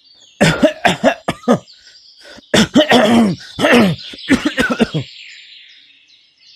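A man coughing and clearing his throat in a string of loud, voiced coughs, in two bouts, that stop about five seconds in: the cough of a cartoon character.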